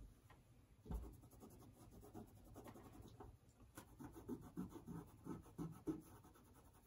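Faint, quick scratchy strokes of a cloth rag rubbing over an oil-painted canvas, lifting off wet paint to bring back the white of the canvas, with a soft knock about a second in.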